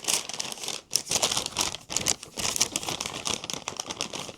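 Crinkling and rustling of takeout food packaging being handled and opened, a dense crackly clatter with a couple of brief pauses.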